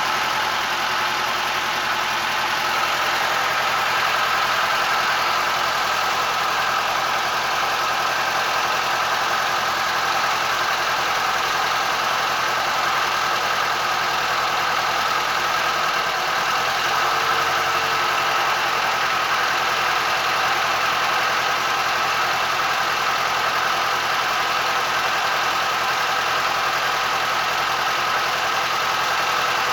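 Boat engine running steadily under way, an unchanging drone mixed with rushing noise.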